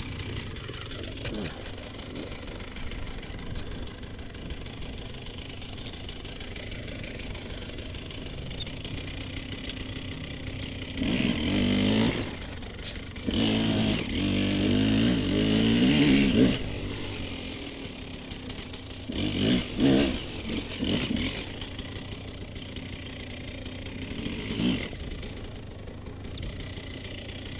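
Dirt bike engines running, with several louder bursts of revving that rise and fall in pitch through the middle.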